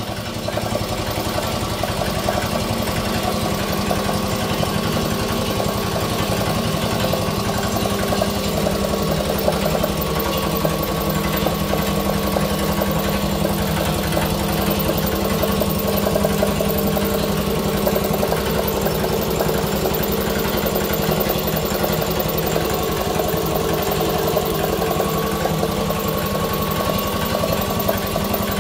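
Rebuilt 1964 single-cylinder air compressor pump, belt-driven by an electric motor, running steadily on its first run after the rebuild: a rapid, even beat from the pump over a steady motor hum.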